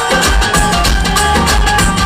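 Loud music with a heavy, steady drum-and-bass beat and percussion: a sound check track played through a live sound system.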